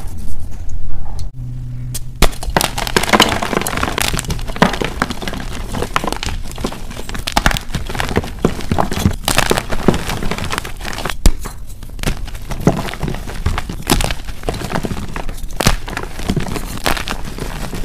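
Dip-dyed gym chalk crunching and crumbling as hands squeeze and break up chunks: a dense, irregular run of dry cracks and crackles.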